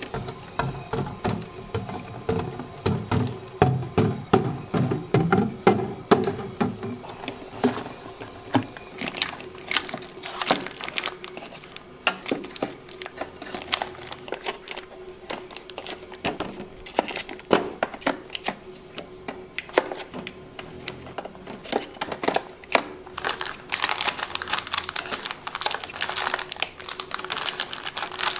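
Plastic drink bottles and snack packets being set into a refrigerator's shelves and plastic door bins: irregular clicks and knocks of plastic on plastic, heavier in the first few seconds, then packaging crinkling near the end.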